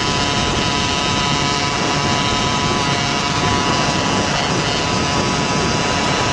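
Case-reed-induction GT90 two-stroke bicycle engine running steadily at high revs while the motorized bicycle cruises at about 50 mph, with wind rush on the microphone. The engine's pitch holds level and does not rise or fall.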